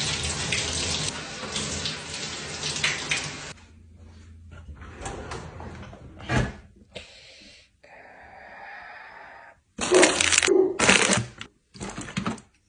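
Tap water running into a sink, shut off about three and a half seconds in; after it come scattered quieter handling sounds and a few short, loud bursts of noise near the end.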